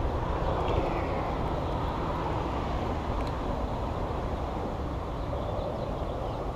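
Steady traffic noise from the highway overpass overhead, a continuous low rumble and hiss of passing vehicles.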